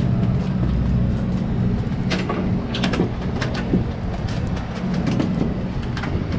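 Steady low drone of a boat's engine running, with a scattered run of sharp clicks about two to four seconds in.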